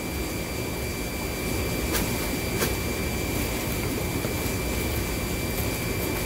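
Steady machine hum and hiss with a thin high whine running through it, with a couple of soft crinkles from plastic plant bags being handled about two seconds in.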